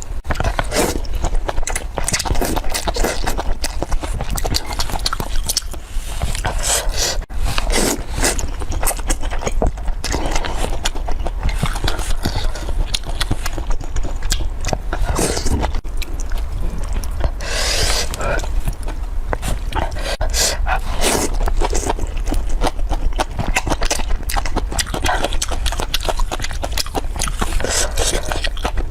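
Close-miked eating: chewing with a dense, irregular run of wet mouth clicks and smacks.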